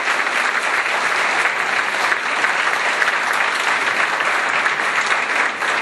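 Audience applauding steadily: many hands clapping in a dense, continuous patter.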